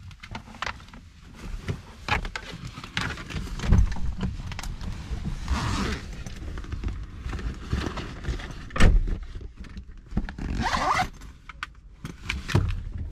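Close handling noises inside a parked car: rustling, scrapes and a string of clicks and knocks, with two longer zip-like swishes about six seconds in and near eleven seconds.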